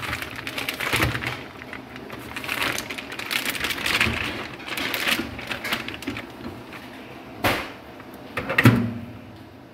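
Crinkling and rustling of a plastic wrapper around frozen pastry sheets being handled, with many small clicks and taps. Near the end come two sharp knocks as the microwave door is opened.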